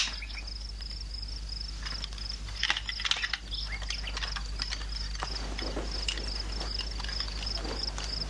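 Crickets chirping in an even, repeating high pulse, with a few soft knocks and rustles about two to three seconds in.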